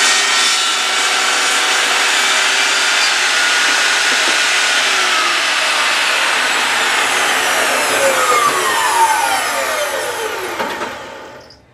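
Table saw running as it cuts a shallow groove along a wooden strip, then switched off: the blade winds down with a falling whine and stops near the end.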